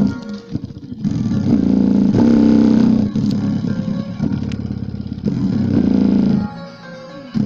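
Loud bass-heavy music played through a bare speaker driver in a bass test. The bass comes in held notes of a second or two that stop and start.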